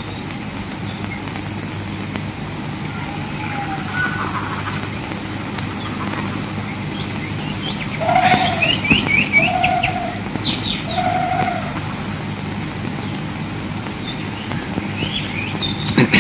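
Birds chirping against the steady hum and hiss of an old film soundtrack; about eight seconds in comes a quick run of high chirps and three short lower calls.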